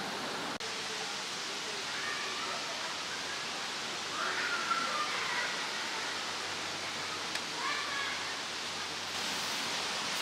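Steady rushing outdoor ambience by the Danube, with faint distant voices now and then.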